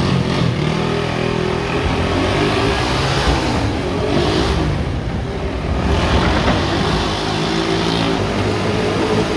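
Motorcycle engine running steadily at speed as the bike circles the wooden wall of a wall-of-death drum.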